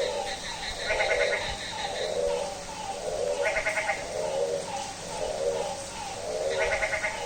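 Frogs calling with goat-like bleating calls, one after another about once a second. A higher, rattling call comes in three times.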